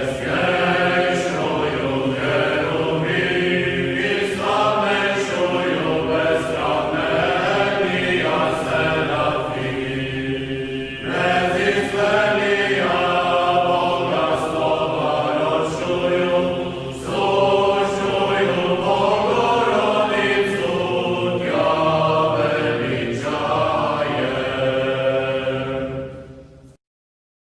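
Background music of voices chanting in chorus, with long held notes; it fades and stops near the end.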